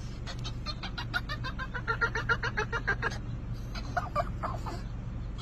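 Boston terrier vocalising in a fast run of short, high whining yips, about seven a second for some three seconds, then a few more, over the car's steady low hum.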